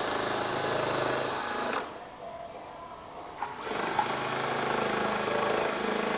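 Small handheld cordless rotary tool grinding the edge of a spare-tire panel to trim it to fit, running for about two seconds, stopping for about two seconds, then running again to the end.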